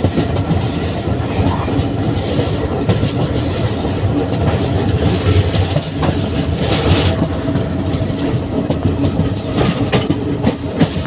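Passenger train running steadily, heard from on board: a continuous rumble of wheels on the rails with light clatter.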